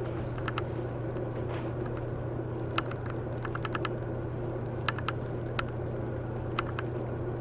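Scattered light clicks and taps from handling a replacement laptop LCD panel and its parts, over a steady low electrical hum.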